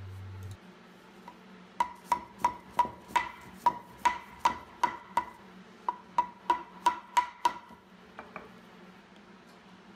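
Wooden mallet knocking a cherry panel down into a tight, freshly glued dado joint. There are about sixteen sharp, ringing knocks, about three a second, with a brief pause midway, then two lighter taps. The joint is a little too tight, so the panel seats slowly under the blows.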